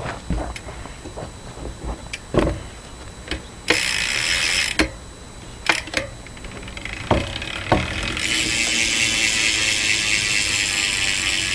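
Verde BMX rear hub's freewheel pawls ratcheting in a fast, even buzz as the wheel spins: a short spell about four seconds in and a longer one from about eight seconds on. Separate knocks come between the two spells.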